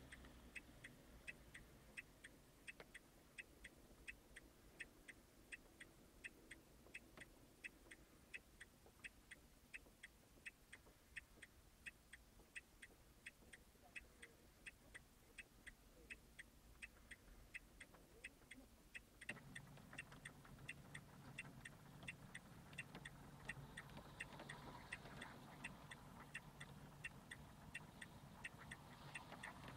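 Fast, even mechanical ticking, a few ticks a second. A low steady rumble sets in about two-thirds of the way through.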